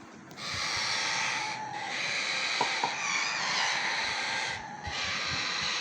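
Baby Indian ringneck parakeet giving harsh, raspy begging calls while being fed, in several drawn-out stretches of a second or more with short breaks between them.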